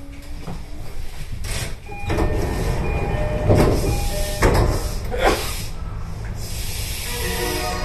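Commuter train standing at a station platform, heard from the driver's cab: air hissing and door-mechanism noise with three loud surges about a second apart, while short steady beeping tones sound. A melody begins near the end.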